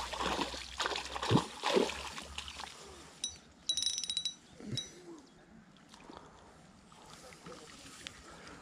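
Water splashing and sloshing as a hooked fish thrashes at the surface by the landing net, followed about three seconds in by a brief burst of rapid metallic clicking.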